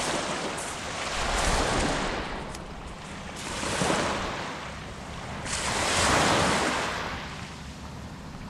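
Small waves breaking and washing up a sand-and-pebble beach, the surf swelling and fading about every two seconds.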